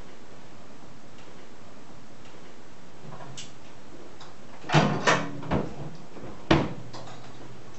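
Knocks and clunks of musicians handling their instruments and gear as they set up to play, the loudest about five seconds in and again about a second and a half later, over a steady hiss. A low hum sounds under them from about three seconds in.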